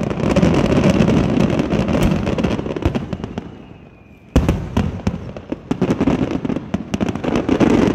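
Aerial fireworks shells bursting in rapid succession, a dense run of bangs and crackle. It eases off about three to four seconds in, then a sharp bang starts a second dense volley.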